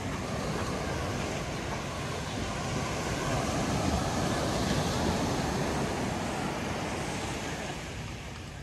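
Surf washing onto a sandy beach: a steady rush of breaking waves that swells a few seconds in and eases off near the end.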